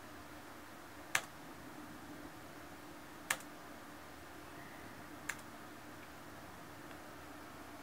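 Three sharp single clicks about two seconds apart, over a faint steady hum.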